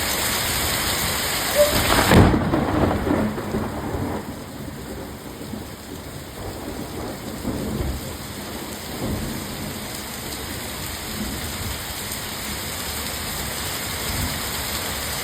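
Heavy rain pouring down in a thunderstorm, a steady hiss of water. About two seconds in, the hiss abruptly turns quieter and duller as a low rumble of thunder comes through.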